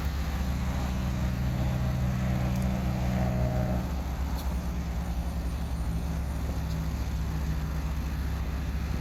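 Steady low rumble of nearby road traffic, with a motor vehicle's engine hum standing out for the first few seconds and then fading back into the background.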